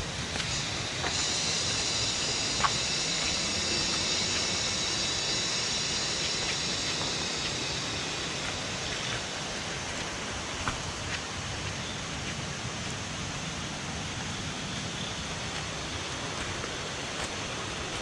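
Rainforest ambience: an even hiss, with a high, shimmering insect chorus that comes in about a second in and fades away by about halfway, and a couple of faint knocks.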